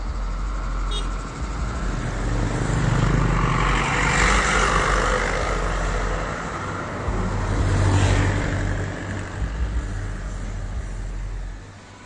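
Road traffic: vehicles passing along the street, with two louder swells about four and eight seconds in over a steady low rumble.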